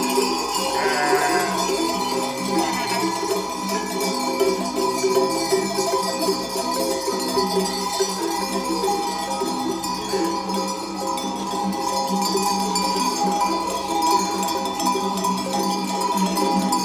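Many sheep bells clanking together continuously as the flock walks, the bells overlapping into an unbroken jangle.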